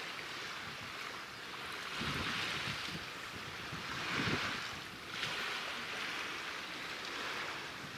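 Wind rushing and buffeting against the microphone at the seashore, with low gusts about two and four seconds in, over a wash of waves that swells and eases.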